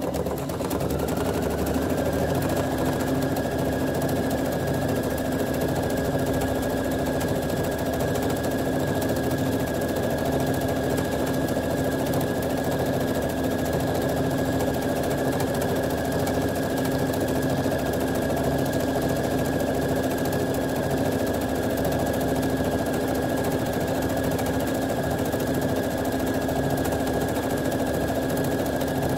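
Electric domestic sewing machine running steadily at speed, stitching through layers of water-soluble film; its motor whine climbs to full speed over the first two seconds, then holds.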